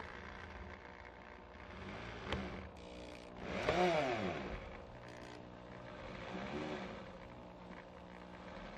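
Ryobi electric drill driving a screw through a rubber weather strip into wood trim, its motor speed rising and falling several times, loudest about four seconds in.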